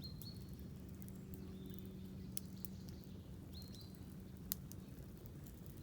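Campfire crackling with a few sharp pops, the loudest about four and a half seconds in, while a bird gives short high chirps three times over a faint low background.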